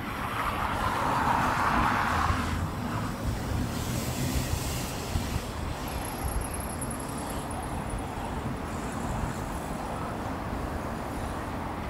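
FedEx Boeing 767-300F's twin turbofan engines at climb thrust just after takeoff: a steady jet roar as the freighter climbs away, loudest in the first couple of seconds and then settling to an even, fainter rumble.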